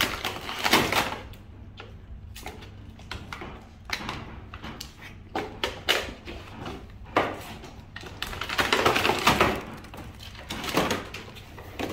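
Toy packaging being handled and opened: scattered clicks and knocks, with a longer rustling stretch about nine seconds in.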